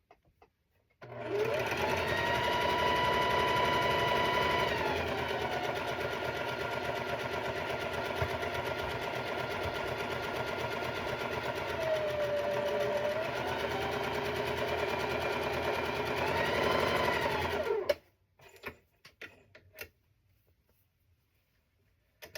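Sewing machine stitching a long seam, sewing sashing onto a quilt block. The motor runs up to speed about a second in, holds steady, slows briefly and picks up again, then stops suddenly a few seconds before the end.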